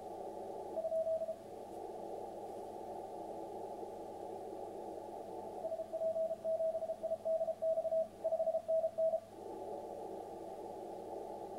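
Morse code (CW) from the A82X station heard through an HF transceiver on 10 m: a steady beeping tone keyed in dots and dashes over a hiss of band noise narrowed by the receiver's filter. There is one short beep about a second in, then a longer run of keyed characters in the middle, during which the background hiss drops.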